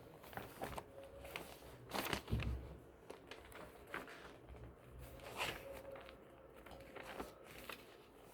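Paper being handled and crinkled: irregular crackles and rustles, with louder crunches about two seconds in and again past the middle.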